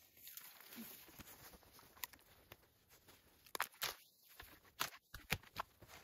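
Snow crunching and scraping as it is scooped and packed with a plastic tote lid: irregular faint crunches, with a few louder ones in the second half.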